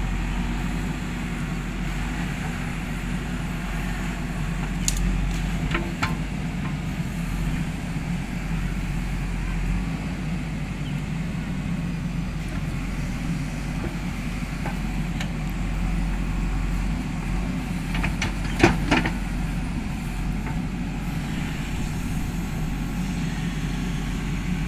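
JCB backhoe loader's diesel engine running steadily while the backhoe arm digs, with a few short sharp knocks, the loudest about three-quarters of the way through.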